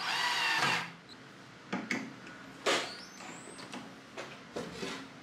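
Black+Decker 12V cordless drill driving a screw into a pine bed slat, its motor whining with a wavering pitch for under a second before stopping. A few sharp knocks follow, the loudest about two seconds in.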